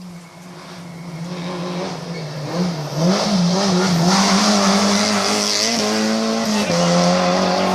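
Classic rally car engine approaching hard on a stage, growing louder over the first three seconds. Its note dips and rises in quick throttle blips as it brakes and downshifts, then runs loud and fairly steady at high revs.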